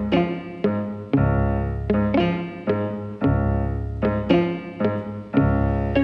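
Background music: a melody with notes struck about twice a second over sustained low bass notes.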